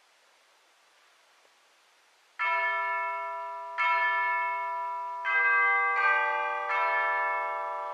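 Hall quiet, then about two and a half seconds in tubular bells (orchestral chimes) begin striking slow notes. There are several strokes roughly a second to a second and a half apart, and each rings on and fades under the next.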